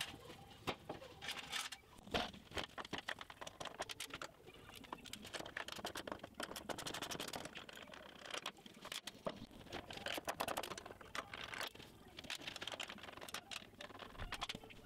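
Light, irregular clicks, taps and clinks of hand tools and metal fittings as a SawStop contractor table saw is unbolted and taken apart.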